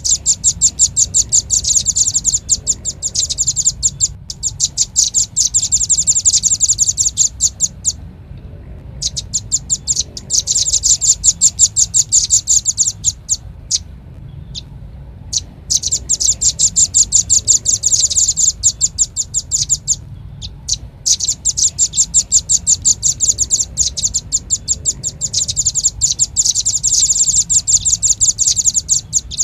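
Velvet-fronted nuthatch (rambatan paruh merah) calling in long, rapid trills of sharp, high notes, four runs of several seconds each with brief pauses between. It is a lure-call recording used to draw the birds in, over a faint steady low hum.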